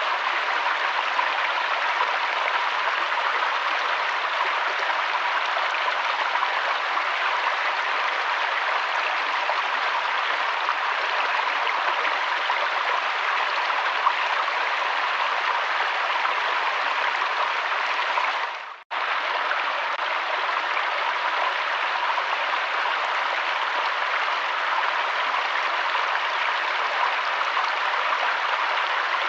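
Steady rushing of flowing river water, which fades out and back in once, briefly, about two-thirds of the way through.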